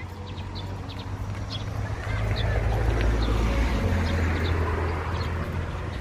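A vehicle passes on the street, its rumble swelling over a couple of seconds and then fading, while small birds chirp again and again.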